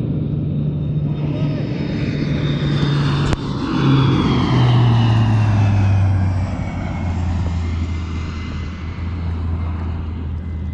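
C-130 Hercules four-engine turboprop flying overhead. The propeller drone is loudest about four to five seconds in, where its pitch drops as the aircraft passes, and a high whine falls slowly in pitch through the pass.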